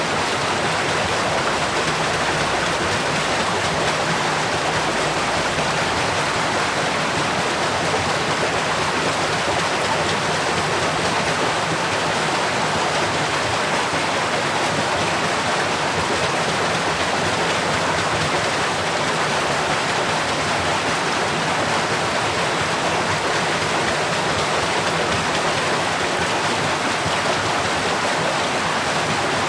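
Water rushing and splashing steadily as it drives a watermill's waterwheel, an even, unbroken sound with no distinct knocks.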